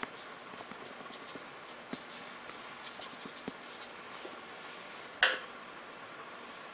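Chinese ink brush dabbing and stroking on rice paper: a scatter of faint, irregular light taps and brushing sounds. There is one louder, brief sound about five seconds in.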